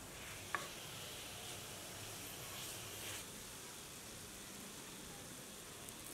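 Mutton frying gently in a cast-iron pan, a faint steady sizzle, with one sharp tap about half a second in.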